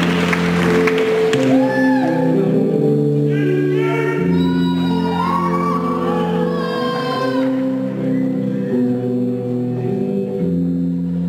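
A live band playing slow, held chords over a steady bass, with a voice singing over it through the middle; crowd cheering fades out in the first second.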